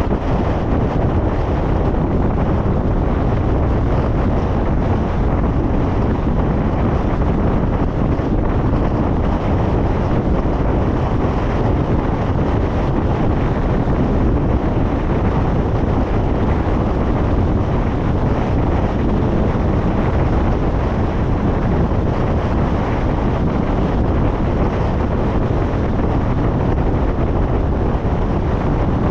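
Steady wind noise rushing over the microphone, mixed with the road noise of a car driving at speed.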